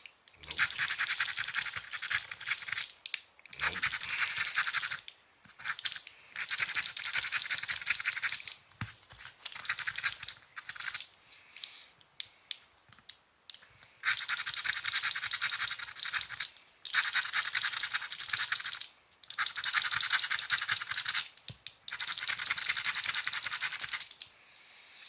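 A scratch-off lottery ticket being scratched with a vitamin pill: repeated runs of fast scratching strokes, each lasting a second or a few seconds, with short pauses between them.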